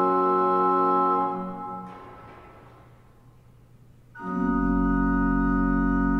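Pipe organ holding a full sustained chord, released about a second in and dying away slowly in the room's reverberation. About four seconds in a new loud chord enters with a deep pedal bass note and is held steadily.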